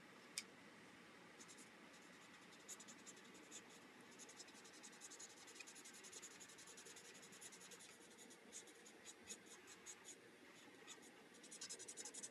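Faint scratching of an alcohol blending marker's tip on stamped paper, many short quick coloring strokes, with a single click just after the start.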